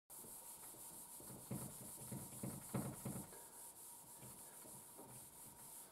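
Dry-erase marker rubbing across a whiteboard in several short, faint strokes, with a steady hiss behind.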